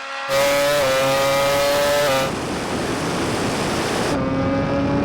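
Racing vehicle running flat out at the end of a drag run: a loud, high, steady engine or motor note that comes in suddenly just after the start, gives way to a stretch of rushing wind and road noise for about two seconds, then returns at a lower note, the abrupt changes falling between shots.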